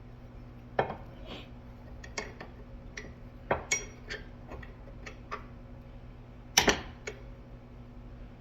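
Steel door hinge parts clinking and tapping as they are handled, about a dozen irregular metallic strikes, some ringing briefly, the loudest a little past halfway.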